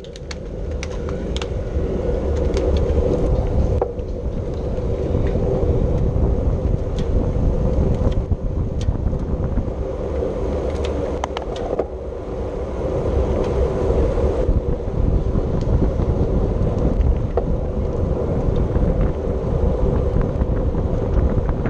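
Wind rushing over the microphone on a moving bicycle, with a steady rumbling hum from the road and drivetrain and scattered sharp clicks, as a bicycle race pack rolls off from the start.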